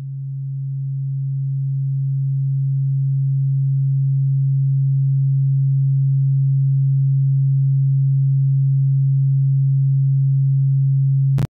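Low, steady sine tone of a theta-wave binaural-beat track, swelling up over the first few seconds and then holding. It cuts off abruptly with a click just before the end.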